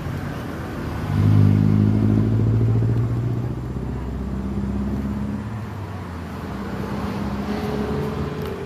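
Road traffic: a motor vehicle's engine grows loud about a second in and runs for a few seconds, then shifts in pitch, over steady road noise.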